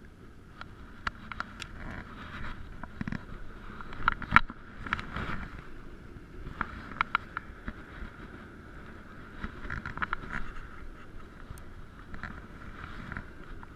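Muffled handling noise heard through a GoPro's sealed waterproof housing: irregular clicks, knocks and rubbing as hands work close to the camera, with the loudest cluster of knocks about four seconds in.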